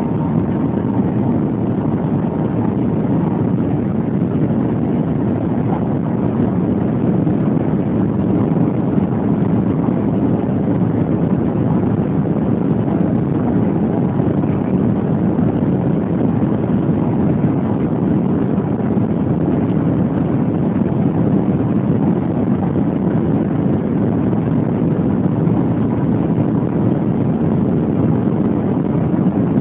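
Cabin noise of the Shanghai Transrapid maglev train travelling at about 280–300 km/h: a steady, loud, low rushing noise with no rhythm or breaks. It is heard through a phone microphone that cuts off the high end.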